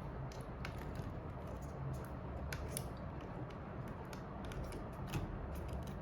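Small hand tools clicking and scraping against an iPhone during a battery replacement, in scattered light ticks with a sharper click about five seconds in, over a steady low hum.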